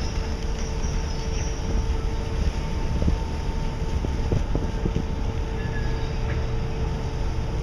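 Ship's engine and machinery running steadily at sea: a deep rumble under a constant two-note hum.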